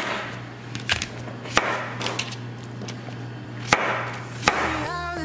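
Kitchen knife slicing a yellow squash into rounds on a thin plastic cutting board: about six sharp, unevenly spaced knocks as the blade cuts through and strikes the board.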